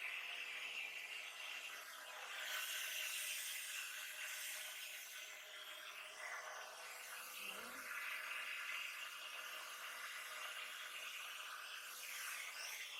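Small handheld hair dryer running, a steady whirring hiss with a constant hum, swelling and easing as it is moved over the paint.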